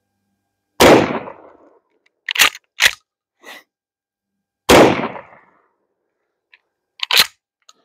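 Two 12-gauge shotgun blasts, about four seconds apart, from a Serbu Super Shorty pump shotgun firing 2¾-inch 00 buckshot. After each shot the pump action is racked with two quick clacks.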